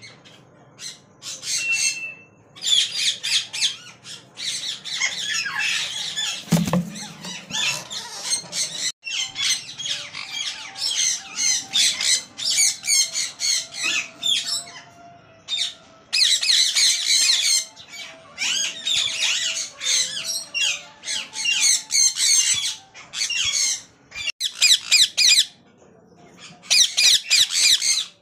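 Alexandrine parakeet nestlings begging: bouts of rapid, shrill chirping calls, one after another. A single low thump comes about six and a half seconds in.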